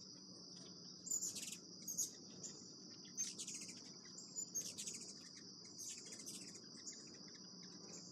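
A steady, high insect drone with small birds chirping in short, high bursts about five times. Under them runs a faint, low, steady air-conditioner hum.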